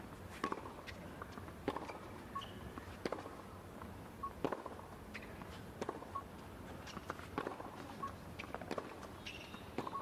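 Tennis rally on a hard court: the ball is struck hard by rackets about every second and a half, with bounces and short sneaker squeaks from the players' footwork in between.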